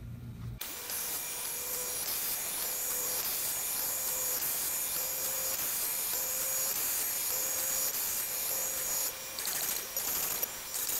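Shapeoko 3 CNC router's spindle running at a steady high whine with a hiss as its 1/8-inch bit cuts a slot in wood. It comes in suddenly about half a second in and dips briefly twice near the end.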